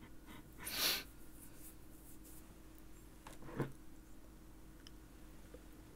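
Quiet small-room tone with one short, soft breath just under a second in and a faint click a little past halfway.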